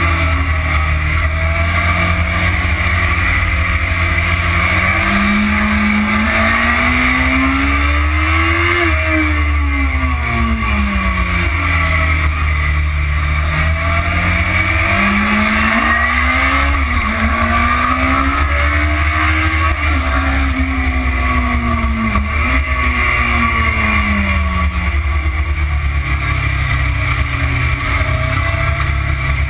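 Motorcycle engine on a racetrack lap, its note climbing and falling several times as the rider accelerates out of corners and shuts off for the next ones. A heavy, steady wind rush on the bike-mounted camera's microphone runs underneath.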